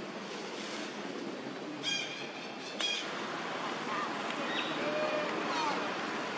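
Outdoor forest ambience: a steady hiss with two short, high-pitched animal calls about two and three seconds in, and a few faint whistled calls later on.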